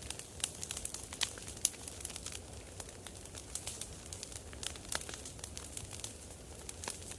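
Campfire crackling: burning wood giving off irregular sharp pops and snaps, over a low steady rumble.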